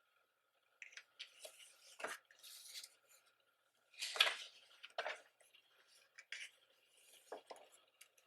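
Pages of a thick photo book being turned and handled: a series of short paper rustles and flaps, the loudest about four seconds in.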